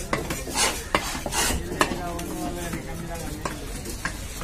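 A large knife chopping a big fish into steaks on a wooden stump block: sharp chops, the loudest in the first two seconds and fainter ones near the end, with swishing cuts between them.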